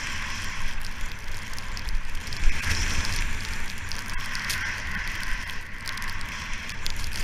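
Skis hissing and scraping over fresh snow on a downhill run, with crackles from the snow and wind rumbling on the GoPro's microphone; one louder bump about two and a half seconds in.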